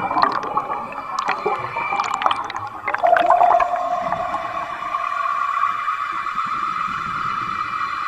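Electric drive motor and propeller of an RC model submarine heard underwater: a steady whine made of several fixed tones, with bubbling, clicking gurgles through the first three seconds. A lower tone comes in about three seconds in and holds for a couple of seconds.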